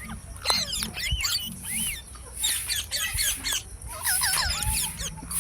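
Green parrots chirping and squawking, a quick, overlapping run of short calls that sweep up and down in pitch.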